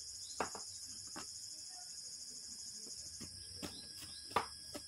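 Handling noise from a phone on a tripod that has started to fall being grabbed and set back up: a few separate knocks and clicks, the loudest about four seconds in, over a steady high-pitched background chirring.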